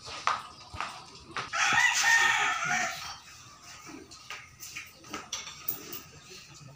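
A rooster crowing once, starting about a second and a half in and lasting about a second and a half.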